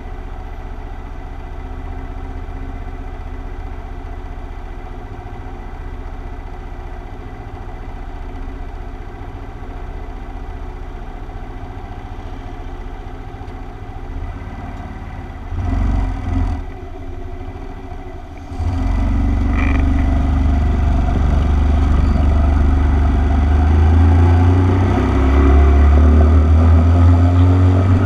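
Motorcycle engine idling steadily at a standstill, with two short throttle blips about halfway through. About two-thirds of the way in it pulls away and accelerates, the engine note climbing through the gears.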